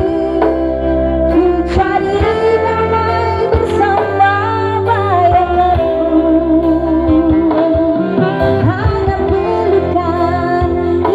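A live band's song with a singer, played loud through a large outdoor PA sound system: a wavering sung melody over steady bass and plucked-string accompaniment.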